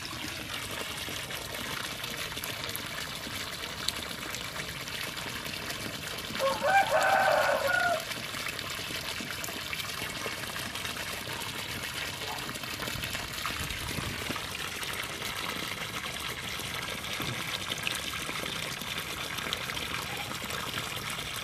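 Water from a Hiflow 0.5 hp satellite well pump running steadily out of the outlet pipe, a strong, fast flow. About six and a half seconds in, a brief loud pitched call cuts in for about a second and a half.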